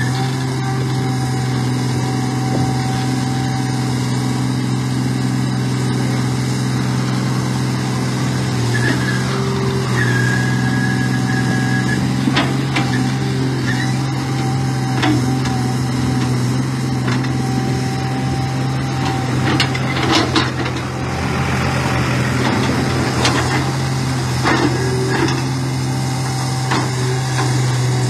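A large engine running steadily at a fixed pitch, with brief high whines and scattered knocks and clanks.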